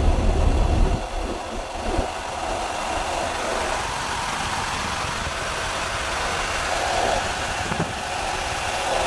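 Steady running noise inside a Mercedes truck cab: the diesel engine idling while the under-dash 24 V air conditioner's blower runs, giving a constant rush of air over a low hum.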